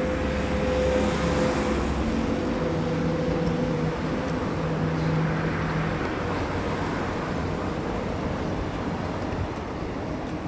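Steady city road traffic noise. An engine's hum stands out over it in the first half and fades away.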